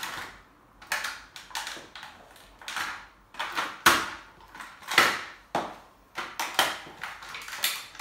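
Small hard-plastic remote-control toy car crushed under stiletto heels: about ten sharp cracks and crunches, less than a second apart, the loudest near the middle.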